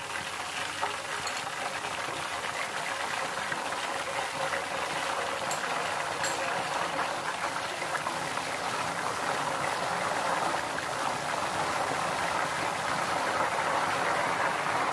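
Thin potato slices deep-frying in hot oil in a steel pot: a steady sizzling and bubbling that grows slightly louder toward the end, with a few faint clicks.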